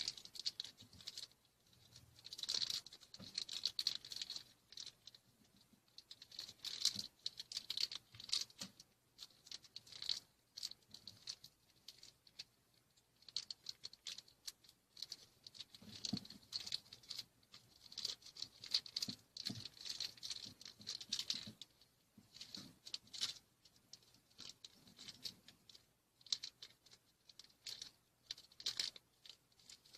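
Crinkling and rustling of plastic toy packaging being handled and opened by hand, in irregular bouts of fine crackles every few seconds.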